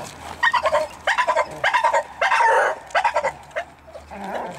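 Doberman barking and growling in about five short bursts, roughly one every 0.6 s, while it grips the decoy during bite work, getting quieter near the end.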